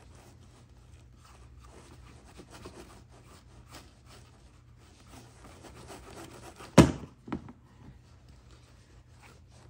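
Cotton rag rubbing and rustling over a wet leather holster as excess acrylic finish is wiped off. A sharp knock comes about seven seconds in, the loudest sound, with a smaller one just after.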